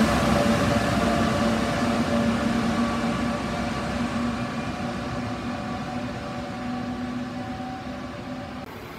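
Passenger train receding along an underground station track, its running noise and steady hum fading away.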